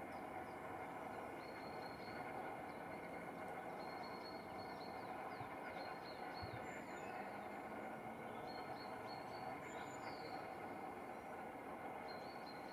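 Outdoor ambience: a steady background rush with short, high, thin bird chirps recurring throughout.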